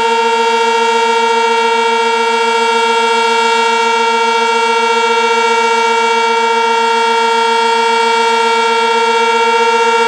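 Sentry 16V1T-B outdoor warning siren sounding its alert signal: one loud, steady tone with no rise or fall in pitch.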